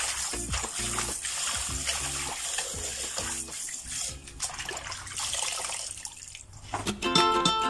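Kitchen tap running into a sink of water as bok choy leaves are swished and rinsed by hand, with splashing and dripping; the water sound thins out about four seconds in. Background music comes in near the end.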